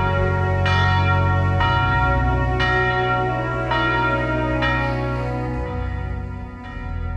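Church bell tolling, about one strike a second with long ringing overtones; the strikes stop about five seconds in and the ring dies away.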